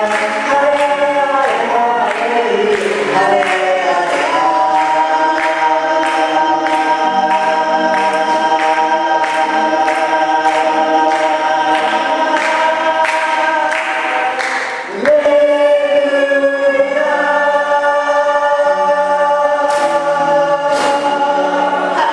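Group of church singers singing a gospel song over a steady beat, holding long notes and starting a new phrase about fifteen seconds in.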